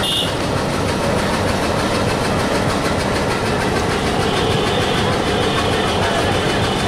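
Diesel locomotive's engine running steadily as it moves slowly along the track.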